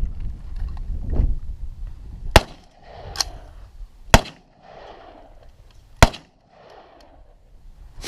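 AR-15 rifle in 5.56 firing three single shots, about two seconds apart.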